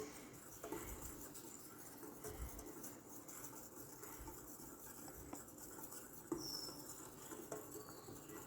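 Faint scraping and light tapping of a utensil stirring a dry flour mixture in a bowl, with a sharp click at the very start.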